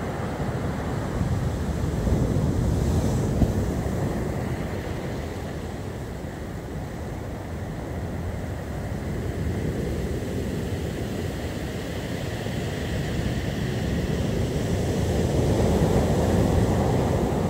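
Storm surf breaking and washing up a beach, a continuous rush that swells about two seconds in and again near the end, with wind buffeting the microphone.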